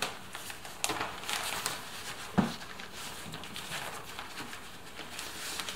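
Crinkling and rustling of a sound-deadening sheet being peeled and pulled away from a car door's inner panel by hand, with a couple of sharp clicks.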